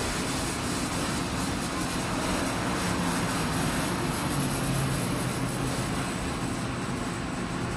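Steady low engine drone with a hiss from a stopped coal train's diesel locomotives idling.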